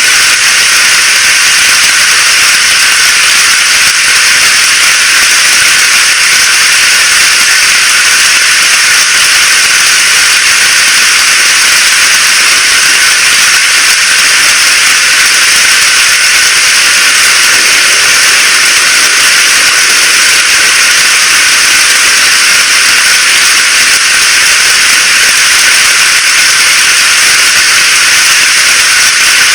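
Steady heavy rain falling, a loud, even hiss with no single drops standing out.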